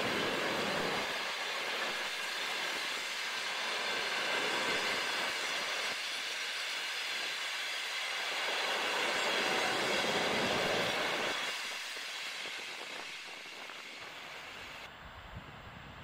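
Long passenger train passing close by, its coaches' wheels running along the rails in a steady rumble and rattle that fades away after about eleven seconds as the last coaches go by.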